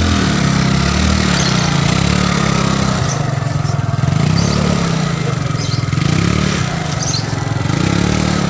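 Small motorcycle engine running at low speed, its revs rising and falling again and again.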